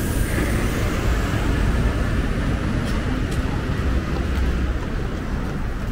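City street ambience: a steady rumble of road traffic passing on the adjacent street.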